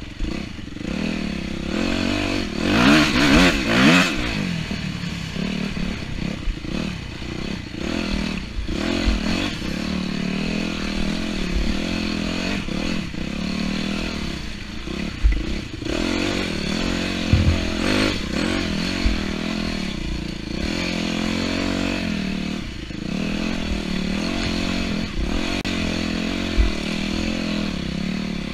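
250cc off-road motorcycle engine running hard on a race course, its pitch rising and falling with throttle and gear changes, with one loud rev that climbs and drops about three seconds in. Clatter and occasional short thumps from the bike over rough ground run through it.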